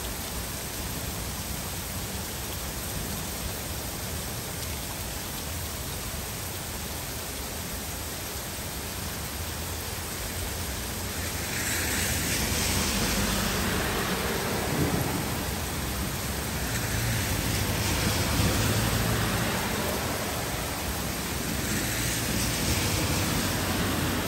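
Heavy rain pouring steadily, swelling louder in three waves from about halfway through, with low rumbles of thunder under it.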